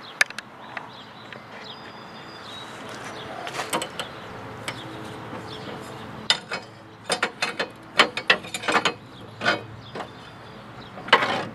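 Socket ratchet clicking in short bursts as it turns the blade bolt on a riding mower's deck spindle, the clicks thickest in the middle of the stretch.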